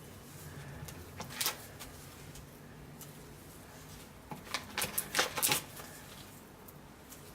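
Lard being scooped and scraped out of its package with a utensil: a few brief scrapes and rustles, one about a second in and a quick cluster of them about five seconds in.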